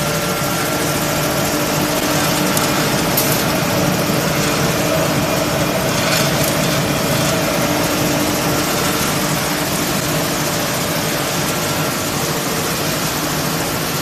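Wood pellet production-line machinery running steadily: a loud, even mechanical drone with a few constant hum tones through it.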